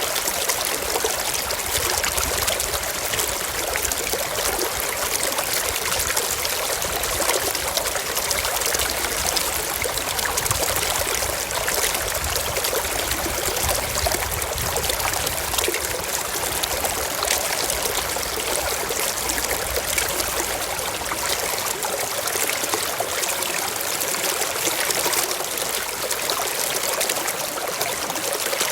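Waterfall: a steady, unbroken rush of falling and splashing water, mostly hiss and splash with little low rumble.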